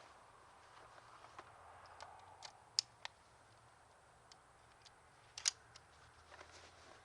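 A CZ 241 16-gauge semi-automatic shotgun being handled and loaded: a few faint, sharp clicks. The loudest are two close together about three seconds in and one about five and a half seconds in.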